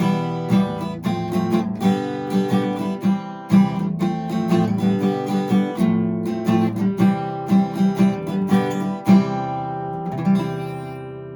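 Intro music: an acoustic guitar being plucked and strummed, ending on a chord that rings and fades away near the end.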